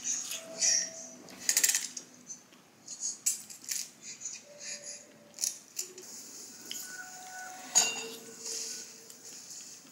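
Metal spoon clinking and scraping against a ceramic bowl while eating: scattered light taps, some ringing briefly, with the sharpest strikes about one and a half seconds and nearly eight seconds in.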